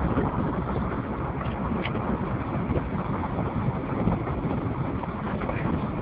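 Steady rumble of a moving vehicle mixed with wind buffeting the microphone, filmed out of an open side.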